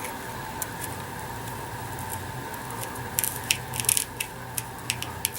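Sharp clicks and taps of small parts being handled, coming thickly from about three seconds in, over a steady faint hum.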